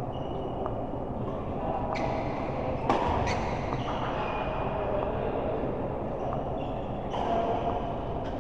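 Doubles game on an indoor court: several sharp hits, the loudest about three seconds in, with short high squeaks of shoes on the court floor over a steady hall hum.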